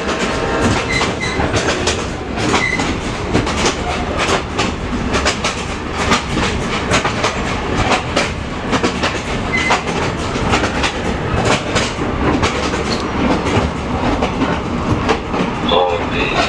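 Passenger train cars running along the track, heard from on board: a steady rumble with irregular clicking and rattling of the wheels over the rails.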